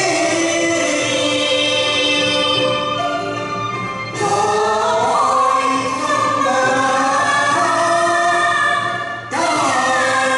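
A man and a woman singing a Cantonese duet into microphones over backing music, in long held notes. A new sung phrase starts about four seconds in and another near the end.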